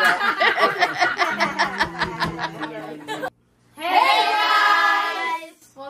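A group of people laughing in quick repeated bursts. After an abrupt edit cut, a loud group cheer is held for about two seconds.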